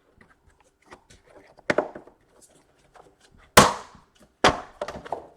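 Plastic snap clips of an Acer Aspire R15 laptop's case popping loose as it is pried open: a few sharp snaps, the loudest about three and a half seconds in.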